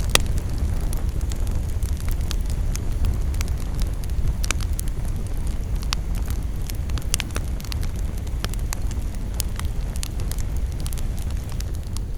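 Campfire burning, with irregular sharp crackles and pops of burning wood over a low, steady rumble. A loud pop comes right at the start, and others fall about four and seven seconds in.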